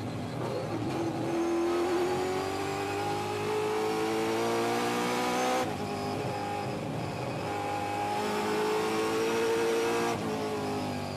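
V8 engine of a Ford Trans Am TA-class race car heard from inside the cockpit, pulling hard with its pitch climbing steadily as the car accelerates. It upshifts about five and a half seconds in and again near the end, the pitch dropping at each shift.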